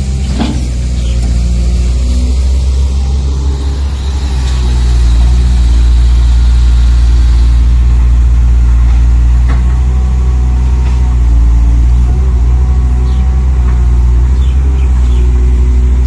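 Steady diesel-truck engine sound running at about idle, as from a scale RC truck's engine sound unit, growing louder about five seconds in.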